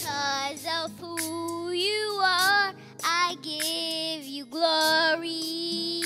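A young girl sings a worship song solo into a handheld microphone, in phrases with long held notes, over a backing track.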